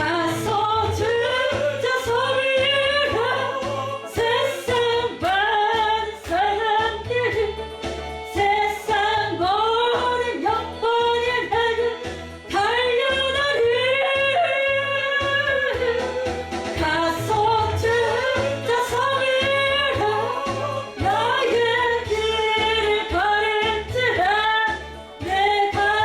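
A hymn sung by a solo voice over an instrumental backing track, with a steady bass line under a continuous sung melody.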